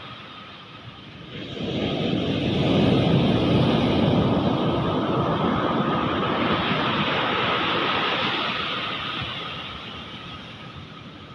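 Ocean surf: a wave breaks and washes in, swelling up about two seconds in and slowly fading away near the end.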